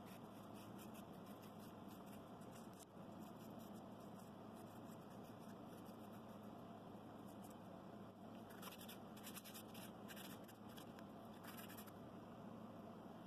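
Faint scratching of a hand file worked over the edges of a small scroll-sawn wooden piece, with a denser run of strokes about two-thirds of the way through, over a steady low hum.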